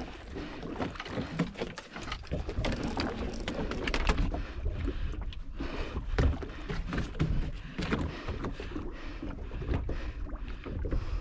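Water slapping against the hull of a small open fishing boat, with wind rumbling on the microphone and frequent short knocks and splashes as a multi-hook hand line is hauled up over the side with fish on it.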